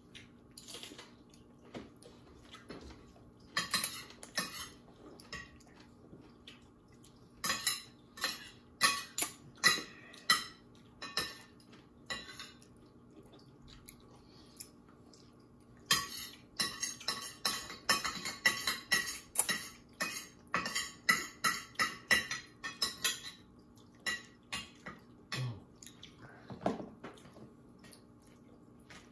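Metal cutlery clinking and scraping against a dish, in several runs of quick, sharp clinks, the longest and busiest a little past halfway.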